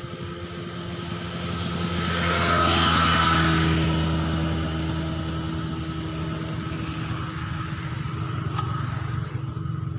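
A motor vehicle's engine running close by, getting louder to a peak about three seconds in, then easing to a steady hum. A single sharp click comes near the end.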